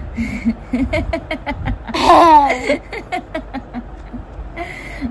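A baby laughing in short, quick bursts, with a louder, high squealing laugh that falls in pitch about two seconds in.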